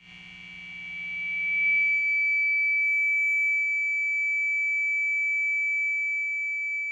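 A single steady, high-pitched electronic ringing tone from the film's sound design. It swells in over the first second or two while a low, layered drone beneath it fades away.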